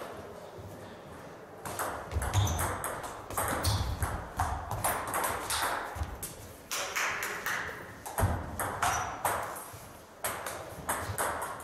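Table tennis balls clicking off rubber-covered bats and bouncing on the table tops in quick irregular rallies, the strokes picking up about two seconds in, with low thuds under them.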